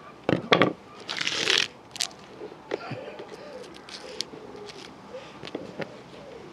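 Sharp cracks and crackling from a battered electric fan heater, loudest in the first two seconds, then scattered smaller clicks.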